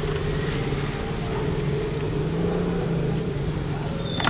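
Steady engine drone of a motor running nearby, with a brief high plastic squeak and click near the end as the motorcycle visor is worked loose.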